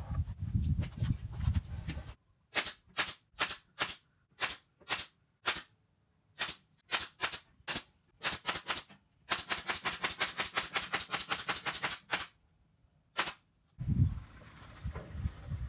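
A series of sharp, very short cracks, some single and some in quick clusters, with dead silence between them. They merge into a fast rattling run for about three seconds and end with one last crack. A low rumble comes before them, in the first two seconds.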